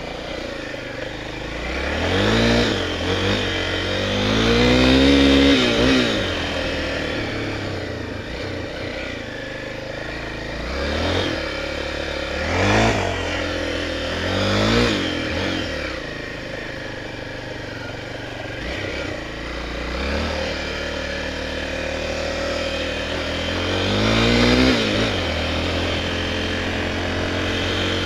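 Honda Tornado 250's single-cylinder four-stroke engine rising and falling in pitch with repeated bursts of throttle as the motorcycle is ridden through thick mud. The loudest bursts come about five seconds in and near the end.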